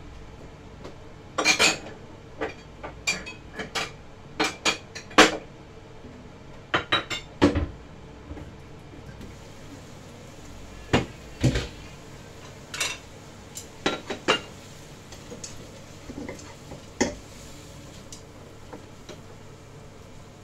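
Kitchenware clattering at a wok: a wok lid, chopsticks and a bowl knocking and clinking against the pan and each other in a run of sharp, irregular clinks and knocks, some in quick clusters.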